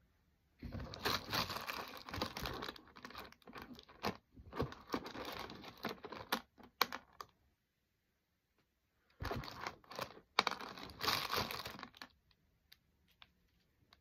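Hair and a hair elastic being handled close to the microphone: rustling and crackling as the hair is twisted and tied off, in two stretches of about six and three seconds with a short pause between, and a few scattered clicks.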